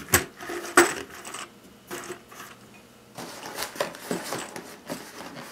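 Boxes of .223 rifle cartridges being set one after another into a metal ammo can: a string of knocks and clatters, the two loudest near the start.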